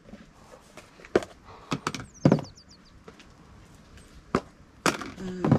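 A few sharp knocks and clatters of kitchen utensils and seasoning containers being handled while the broth is seasoned, the loudest a little over two seconds in. A bird chirps briefly about two seconds in.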